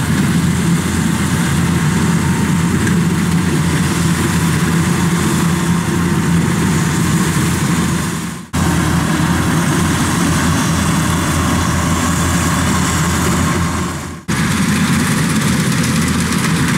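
Kubota DC-105X rice combine harvester's diesel engine and machinery running steadily while harvesting. The sound drops out briefly twice, about eight and fourteen seconds in.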